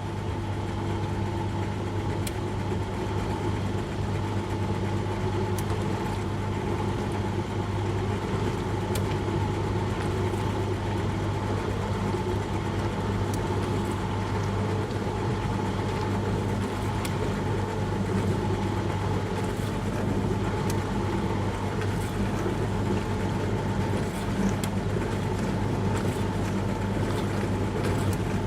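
Dishwasher running mid-cycle: a steady motor hum under the hiss of water spraying inside, with faint ticks now and then.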